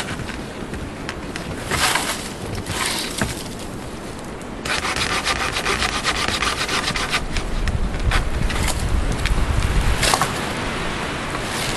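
Hand saw cutting through a dead tree trunk with back-and-forth strokes, the blade rasping through the wood. The strokes come faster and denser about five seconds in.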